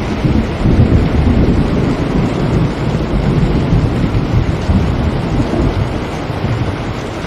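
Steady rain falling, under a low rolling rumble of thunder that swells within the first second and fades away about six seconds in.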